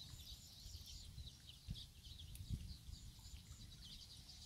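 Faint chirping of small birds, many short high calls, with a couple of soft low thuds in the middle.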